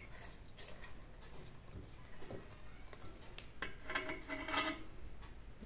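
A metal spoon stirring boondi raita in a metal bowl: soft scrapes and light clinks of spoon on bowl.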